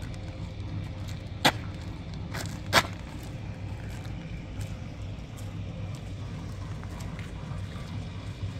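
A steady low mechanical hum, like an engine running, with two sharp knocks about a second and a half apart.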